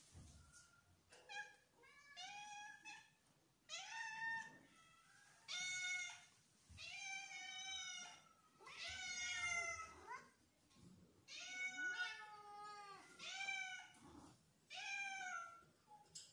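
Cat meowing over and over: about nine drawn-out meows, each rising then falling in pitch.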